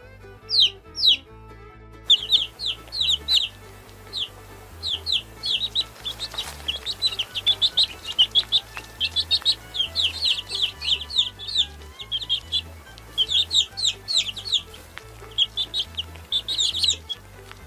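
Baby chicks peeping: many short, high cheeps that fall in pitch, often several birds overlapping, with a sparser stretch in the first two seconds. Quiet background music with a low, pulsing bass runs underneath.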